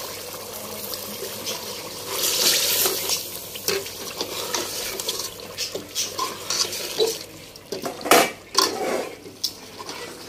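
Metal ladle stirring chicken pieces through thick, wet gravy in a stainless steel pot, with a wet slushing sound and repeated scrapes and clinks of metal on metal. A few louder knocks come near the end.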